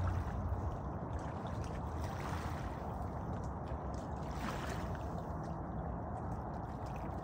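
Lake water lapping and gurgling at the shoreline, a steady noise with small splashy ticks.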